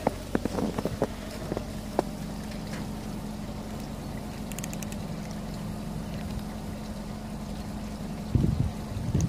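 A steady low hum, with a few sharp clicks in the first two seconds and a burst of low rumbling near the end, like wind buffeting the microphone.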